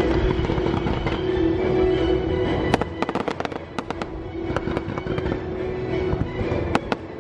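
Fireworks going off: a run of sharp bangs and crackles from about three seconds in, and a few more near the end, over music.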